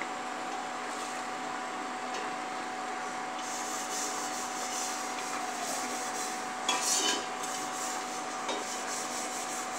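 Steady background hum with a constant faint tone, and a short rubbing noise about seven seconds in.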